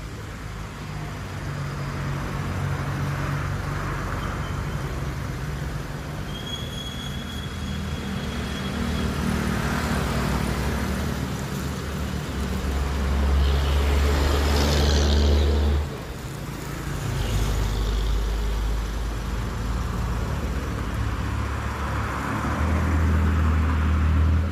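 Road traffic: vehicles passing one after another with engines running and tyre hiss rising and fading. One engine grows loud from about 13 seconds in, then drops off suddenly.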